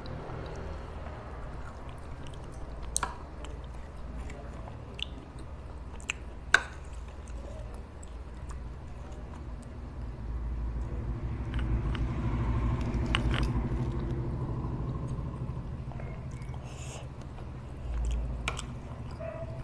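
Close-miked eating of rasabali, soft milk-soaked cheese patties: chewing and mouth sounds, with a few sharp clinks of a metal spoon against the tray. The chewing is loudest in the second half.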